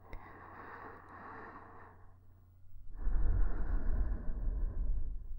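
A woman's slow breathing close to a KU100 binaural dummy-head microphone. A softer breath lasts about two seconds, then after a short pause comes a louder breath of about two seconds with a low rumble.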